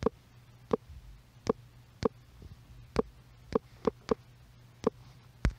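Key presses typing on a smartphone's on-screen keyboard: about ten short, sharp clicks at an uneven typing pace, over a faint steady hum.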